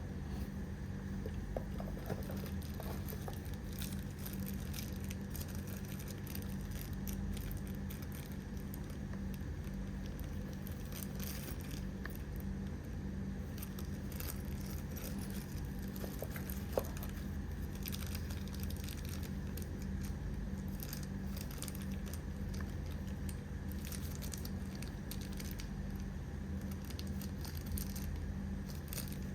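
Scattered light clicks and crinkling of things being handled, over a steady low hum.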